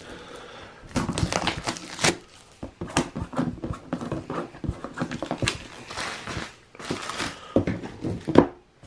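Plastic shrink-wrap being torn and peeled off a board game box, crinkling and crackling irregularly, with a louder crackle near the end.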